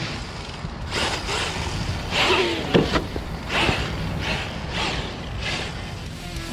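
Redcat Gen8 Scout II RC truck with a 5800kV brushless motor driving on sand and gravel: a series of short bursts of throttle, its tires churning and flinging loose sand and stones.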